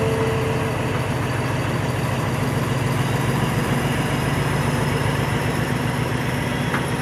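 Diesel train engine idling with a steady low hum.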